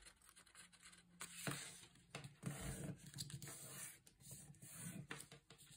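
Faint rustling and scraping of a square of origami paper being folded into a triangle and creased flat by hand, with a few soft ticks as fingers press along the fold.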